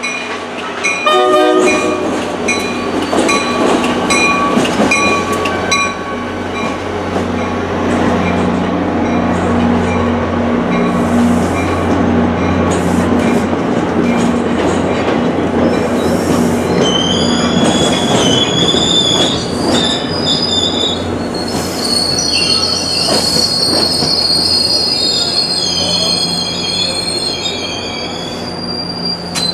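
A New Jersey Transit passenger train passing close by. The locomotive's horn cuts off about a second and a half in, and a steady locomotive drone and rolling rumble follow. Through the second half the coaches' wheels squeal high and on and off.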